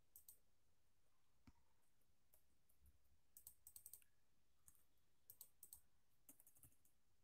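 Near silence with faint clicking: a quick run of clicks about three and a half seconds in and another about five and a half seconds in.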